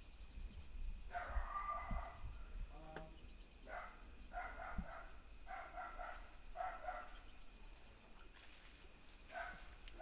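Crickets chirping steadily in a fast even pulse, with several short, faint, pitched cries from further off breaking in about a second in and again through the middle and near the end.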